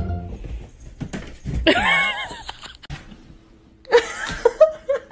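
People's voices and laughter, with a loud, drawn-out, wavering vocal sound about two seconds in.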